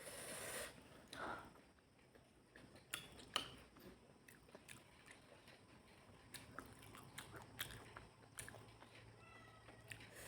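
Close-up mouth sounds of someone eating fish curry and rice: quiet chewing and biting with scattered sharp smacks and clicks, the loudest about three seconds in.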